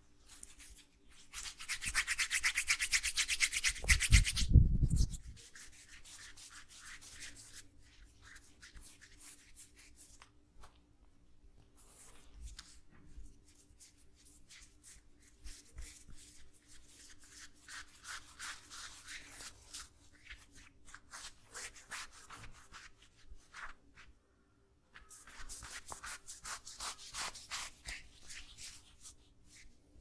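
Hands rubbing briskly over skin and clothing in a massage, in fast repeated strokes. The rubbing is loudest over the first few seconds, with a thump about four seconds in. It then goes on as softer rhythmic strokes, stops briefly near the end and comes back strongly.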